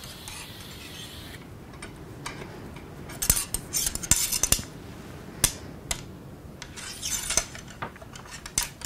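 Ramrod being worked up and down the barrel of a muzzleloading shotgun to seat the charge: metal scraping and rubbing, with clusters of sharp clinks and taps from about three seconds in.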